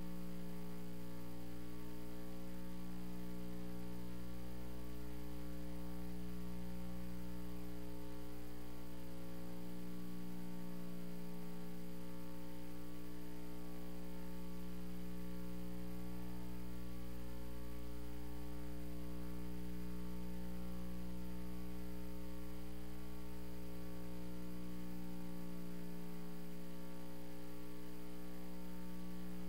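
Steady electrical mains hum with a stack of higher overtones.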